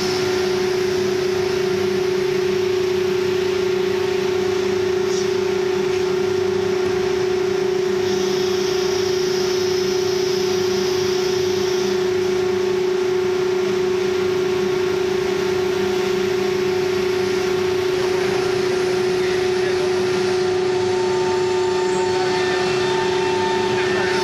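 ATC CNC router running, a steady spindle whine over broad machine noise. A second, higher steady tone joins near the end.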